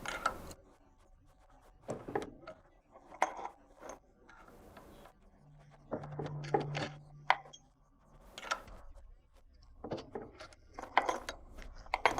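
Steel scissor parts clinking and knocking as they are handled and worked by hand, in irregular sharp clinks. A short steady low hum sounds around the middle.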